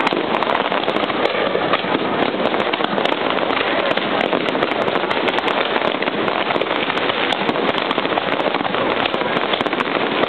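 Aerial fireworks crackling and popping in rapid, overlapping succession, a dense continuous barrage with no pauses, as in a display's finale.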